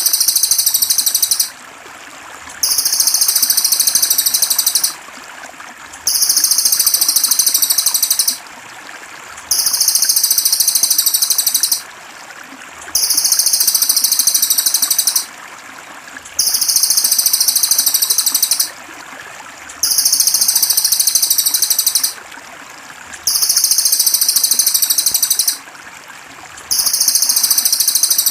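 Songbird-training (masteran) recording: the same high, rapid buzzing trill repeated over and over, each lasting about two seconds with a second's pause between, over steady trickling water.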